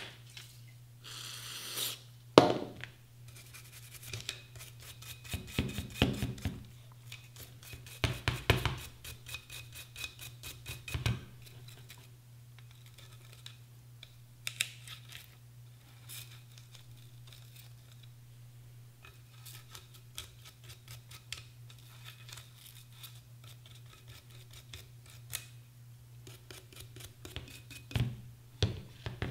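Nylon-bristle bore brush scrubbing the flash hider at an AR-15's muzzle, in bouts of quick scratchy strokes with small clicks and pauses between them, loosening carbon buildup.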